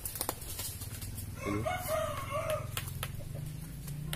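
A rooster crowing once, a call of about a second that rises and then holds with a waver. A few sharp clicks are heard around it.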